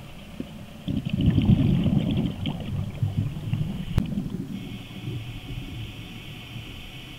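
Scuba diver's regulator breathing, heard underwater: a loud burst of exhaled bubbles rumbling and crackling about a second in, a sharp click about four seconds in, then a steady hiss.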